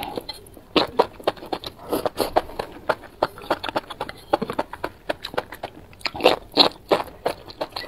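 Eating sounds of enoki mushrooms in chili sauce: quick wet chewing clicks and lip smacks, with louder slurping of the strands about six seconds in.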